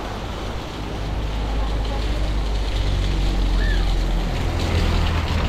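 A motor vehicle's engine running with a low steady hum that grows louder from about a second in, over the even hiss of heavy rain.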